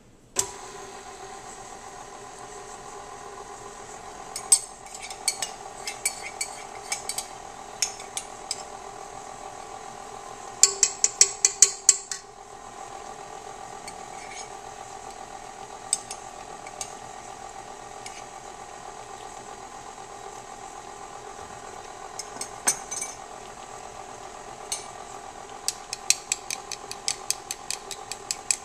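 KitchenAid stand mixer switched on, its motor running steadily with the flat beater turning in the stainless steel bowl, with sharp clicks now and then. Near the end a rapid clicking of a fork beating eggs in a small bowl.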